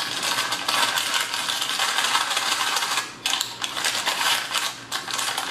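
Crinkling of a paper-and-plastic MRE flameless ration heater bag as it is handled and folded around a food pouch, over the fizzing of the water-activated heater inside.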